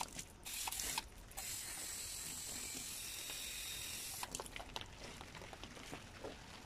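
Garden hose spray nozzle spraying water onto potted flowers: a couple of short spurts, then a steady hiss for about three seconds that stops, followed by scattered small drips and clicks.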